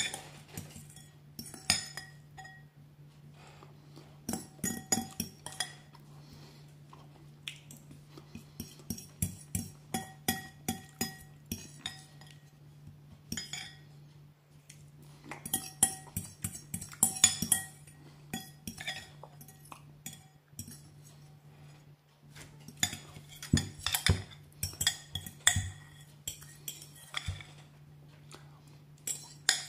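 A metal fork scraping and clinking against a ceramic bowl, gathering up the last of the tomato sauce and spaghetti. The clinks come in bursts of quick strokes with short pauses between.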